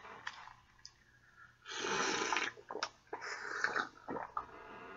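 A person sipping from a small shot glass, with two loud breathy rushes of air about a second and a half apart and a few small clicks.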